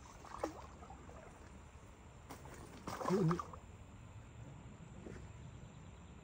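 Faint steady sound of flowing water, with a short pitched sound that wavers in pitch about three seconds in.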